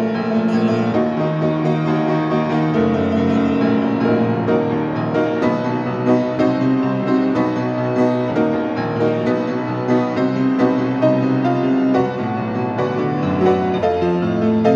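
Grand piano played solo: a continuous flowing passage of chords and melody.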